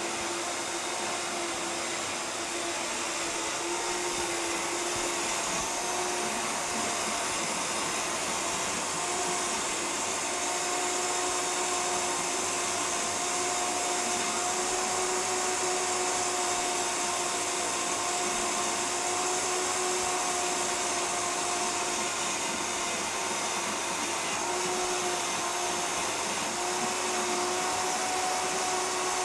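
A high-powered countertop blender runs steadily at speed with a motor whine, blending a thick cashew cream while the tamper pushes it down. The pitch wavers a little now and then under the thick load.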